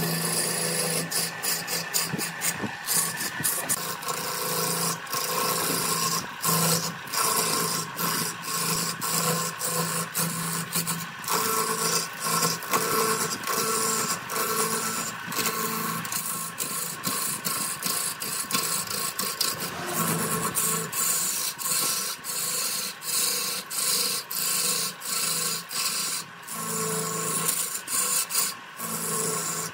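A turning tool cutting into a large wooden blank spinning on a wood lathe: a continuous rough scraping as shavings peel off, broken by many short clicks, with a faint steady hum of the lathe underneath.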